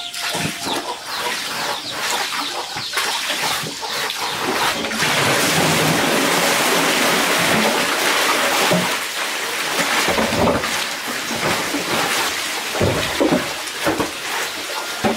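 Rain falling, growing into a steady, louder downpour about five seconds in, then easing with scattered heavier splashes and low rumbles near the end.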